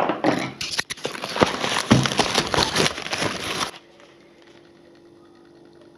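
Packing paper crinkling and cardboard rustling as hands dig through a shipping box, dense and crackly, stopping abruptly a little past halfway. A faint steady hum remains after.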